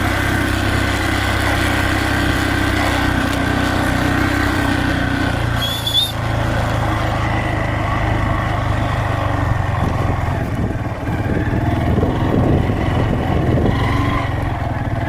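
Small farm vehicle's engine running steadily while it is ridden downhill to bring in the cows; the engine note shifts about five seconds in, and there is a brief high squeak just after.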